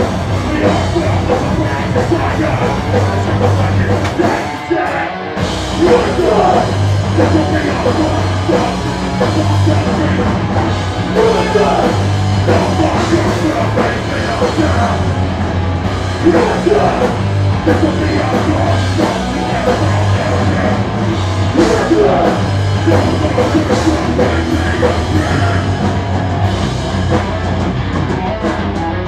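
Live punk band playing loud and fast, with electric guitars, bass guitar and a drum kit, and a singer shouting over it at times. The music breaks off briefly about five seconds in and then crashes back in.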